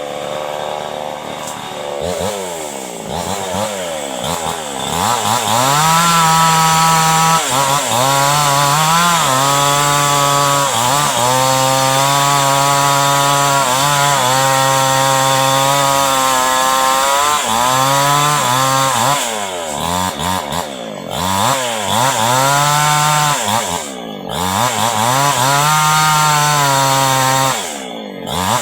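Two-stroke chainsaw engine speeding up to full throttle about two seconds in and held there, its pitch wavering. The revs drop back briefly several times in the last third before climbing again.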